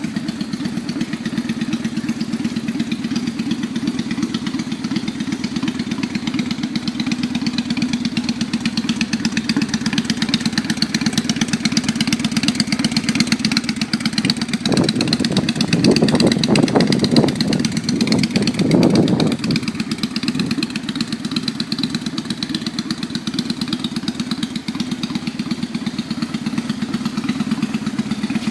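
Honda Steed V-twin motorcycle engine idling steadily. About halfway through it is given a series of quick throttle blips for some five seconds, then settles back to idle.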